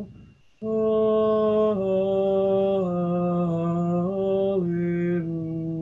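Slow, meditative Taizé Alleluia chant sung in long held notes that move step by step, mostly downward, after a short breath break near the start.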